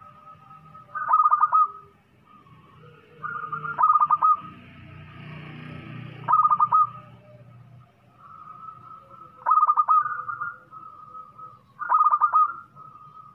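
Zebra dove (perkutut) singing its cooing song: five short phrases of quick staccato coos, one every two to three seconds. A brief hissing noise rises between two of the phrases, about four to six seconds in.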